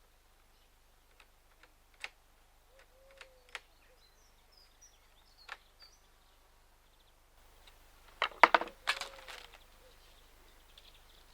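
Scattered light clicks and knocks of roller-reefing fittings being handled, then a short clatter of knocks about eight seconds in, the loudest part. Faint bird chirps in the background.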